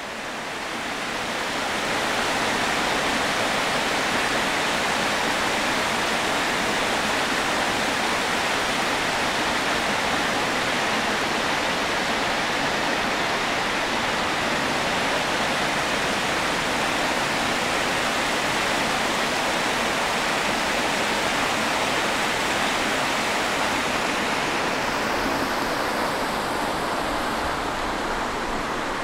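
Rushing water of a small forest river tumbling over rocky rapids, a steady hiss. It grows a little duller and quieter near the end.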